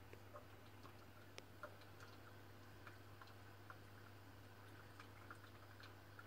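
Near silence: a steady low hum with scattered faint ticks and clicks.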